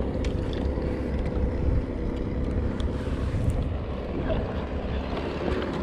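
Wind buffeting the action camera's microphone on open water, a steady low rumble.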